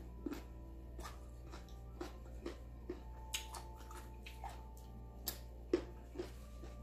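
Crisp unripe green mango slices being bitten and chewed, with irregular sharp crunches and mouth clicks, over a steady low hum.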